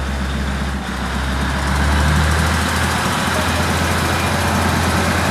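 Diesel railcar's engine running with a low drone as the train pulls along the platform, growing louder about two seconds in, with the engine note shifting about three seconds in.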